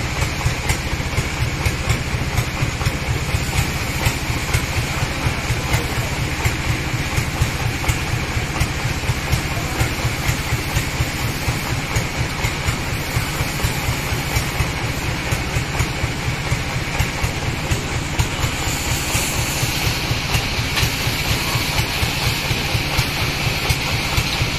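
Sawmill bandsaw machinery running steadily without cutting, a continuous mechanical drone with a regular pulsing beat.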